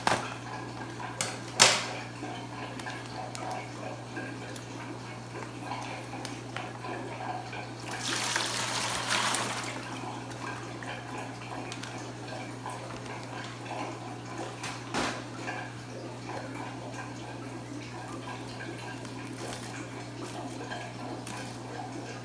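Water from a plastic fish shipping bag poured through an aquarium net into a plastic bucket: a splashing pour lasting about two seconds, near the middle. A sharp click about a second and a half in, with light handling noise and a steady low hum throughout.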